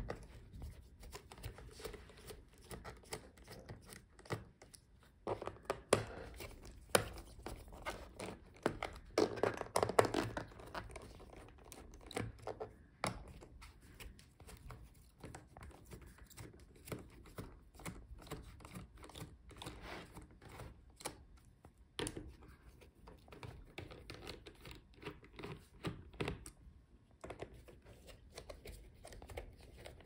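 Small precision screwdriver loosening the bottom-cover screws of a Dell Latitude 3140 laptop: irregular faint clicks and scrapes of the bit in the screw heads and of hands handling the plastic case, a little louder about six to ten seconds in.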